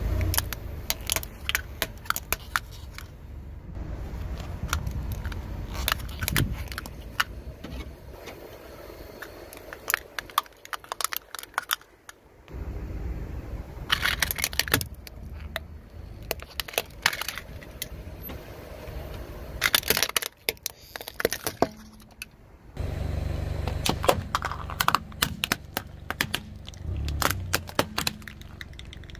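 Car tyre rolling slowly over crunchy objects and crushing them in many sharp cracks and crackles, over the low hum of the car's engine. The engine hum drops out twice and comes back.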